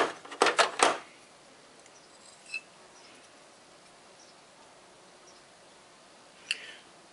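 Several sharp clicks or knocks in quick succession in the first second, then quiet room tone with a single faint tick about two and a half seconds in and another brief faint sound near the end.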